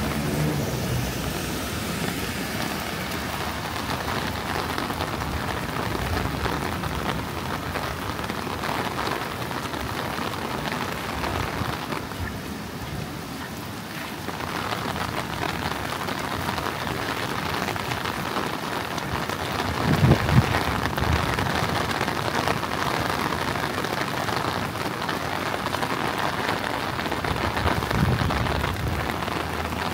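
Heavy rain falling steadily and hard on surfaces. A brief low rumble of thunder about two-thirds of the way through is the loudest moment, and a fainter one comes near the end.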